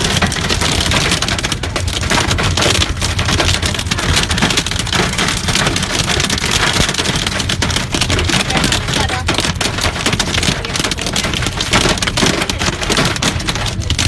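Hailstones and heavy rain drumming on a car's roof and windshield, heard from inside the cabin: a dense, loud, unbroken clatter of impacts.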